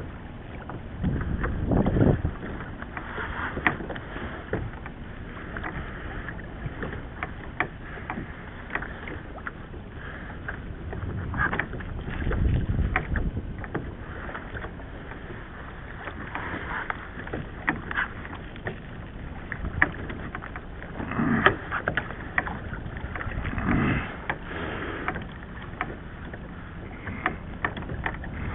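Choppy water slapping and lapping against a kayak hull, with irregular sharp clicks and knocks throughout and a few louder low rushes about 2, 13 and 21 seconds in.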